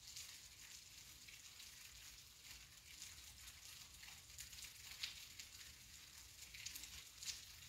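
Rain falling, heard as a faint steady hiss with scattered single drops tapping, one louder drop about five seconds in.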